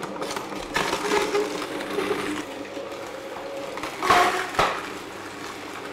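Optimum 600 cold-press slow juicer's auger crushing whole produce pressed down its wide chute with the tamper, with two loud crunches about four seconds in, half a second apart.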